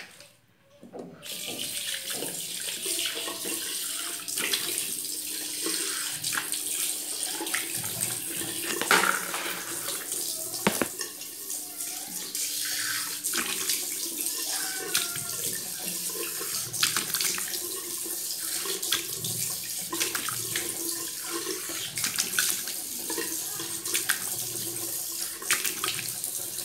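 Water running from a tap into a sink, with repeated splashing as cleanser foam is rinsed off a face by hand. It starts about a second in.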